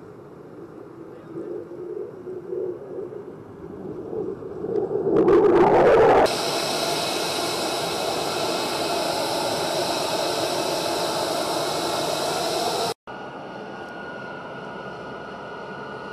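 A fighter jet flying past, its engine noise growing louder to a peak about five to six seconds in. After a cut, jet engines run on the ground with a steady high whine. Near the end, another cut brings a quieter steady drone from a taxiing C-130 Hercules' four turboprop engines.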